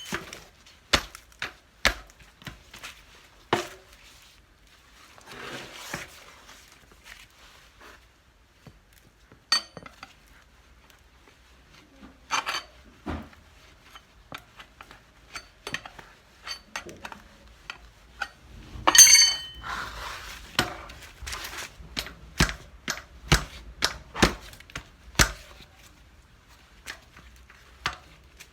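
Irregular metallic clinks and knocks of hand tools and parts during work on a handcart wheel's tyre, with short scraping between and a louder clatter about two-thirds of the way through.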